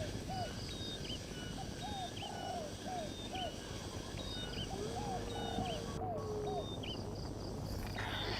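Birds calling: a phrase of quick rising-and-falling notes repeats about every two seconds, with thin higher calls over it and one long even whistle near the middle.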